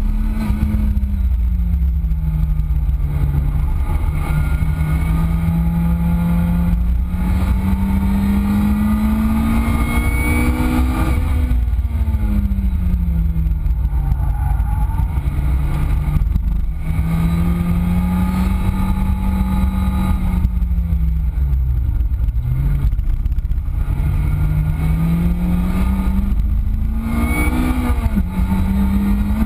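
Lotus Exige S's supercharged 1.8-litre four-cylinder engine driven hard around a circuit, heard from on board: the engine pitch climbs in long pulls through the gears and drops sharply under braking three times, with quick throttle blips on the downshifts near the end. A steady low rumble of wind and road noise runs underneath.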